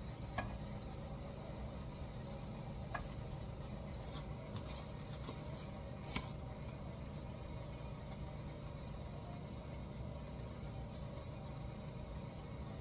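Faint clinks and taps of dishes and containers being handled over a steady low hum. The taps come singly, with a small cluster a few seconds in and the clearest one about six seconds in.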